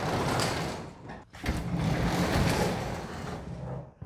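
Sectional garage door being pulled down by hand, its panels rolling down the metal tracks with a steady rumble. The rumble stops briefly about a second in, then carries on until the door is nearly shut.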